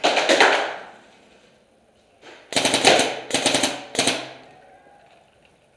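Paintball markers firing rapid strings of shots: one short burst, then a longer string of quick shots about two and a half seconds in.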